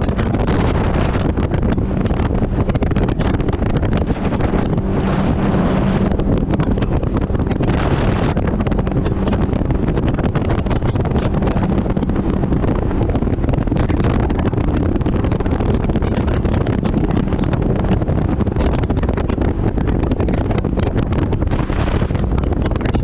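Mercury 80 Jet outboard on a jet boat running steadily under way, with heavy wind buffeting the microphone.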